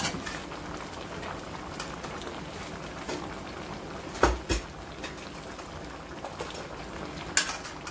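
Seafood boil simmering in a pot of sauce, a steady bubbling, with a couple of sharp knocks as a utensil strikes the pot about four seconds in and another near the end.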